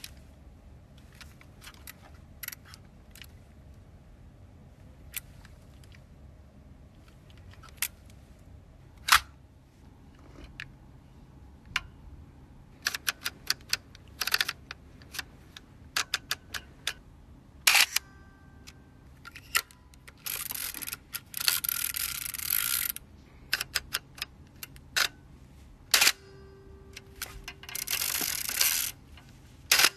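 Freshly serviced Kowa Super 66 medium-format SLR being worked by hand: a run of small mechanical clicks from its lens rings and controls, and a few much louder sharp clacks. Twice there is a rapid ratcheting rasp from the side film-advance crank being wound, about three seconds long and then about a second long near the end.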